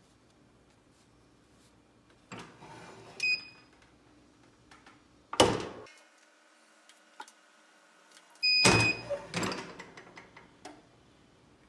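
Clamshell heat press: paper and fabric rustle as the transfer is set, the press lid is pulled down and locks with a sharp clunk about five seconds in, and later a short electronic beep from the press timer comes just as the lid is released and opens with a loud clatter.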